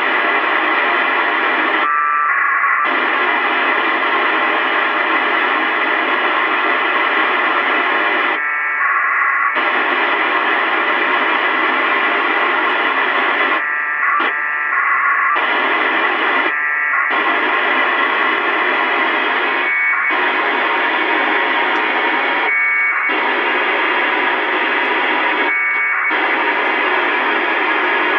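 FM two-metre receiver tuned to the ISS APRS downlink on 145.825 MHz, hissing with the squelch open. About eight short data bursts of packet-radio tones, each lasting under a second to about a second, cut through the hiss every few seconds: APRS packets relayed by the ISS digipeater.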